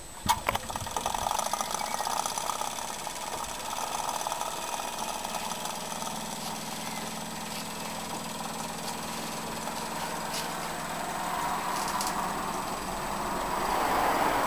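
Small steam engine running steadily on steam from a solar-heated boiler, with a steady hum and steam noise that grows a little louder near the end. A sharp knock right at the start.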